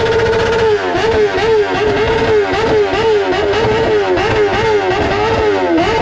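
Kawasaki ZX-10R's inline-four engine revved high and held steady. From just under a second in it is blipped repeatedly near the top of its range, about three rises and falls a second.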